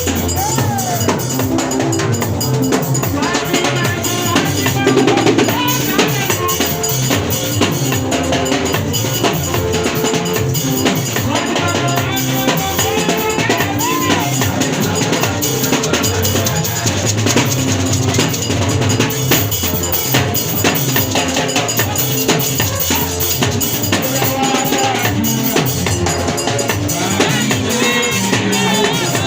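Music driven by a drum kit, with bass drum, snare and rimshot strokes keeping a steady beat under pitched instruments.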